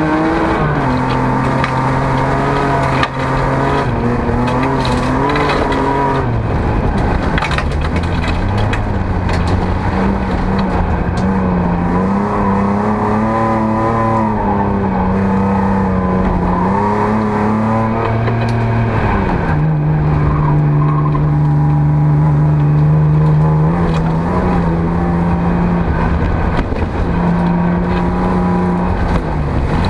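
Folk-race car's engine heard from inside the stripped, caged cabin, revving up and down through the gears under race driving. Its pitch drops a little past halfway and then runs steadier.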